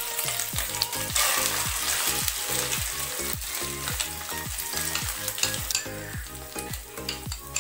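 Hot oil sizzling in a kadai as a thick pea paste is poured and spooned into it. A steady low beat of background music plays underneath.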